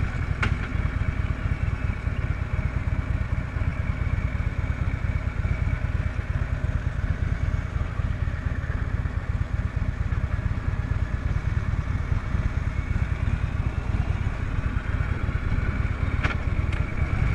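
Harley-Davidson Road King's air-cooled V-twin engine running steadily while riding. A sharp click comes about half a second in, and two more come near the end.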